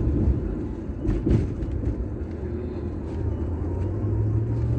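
Car engine and road noise heard from inside the cabin, a steady low rumble with a couple of soft knocks about a second in; a low engine hum grows a little stronger near the end.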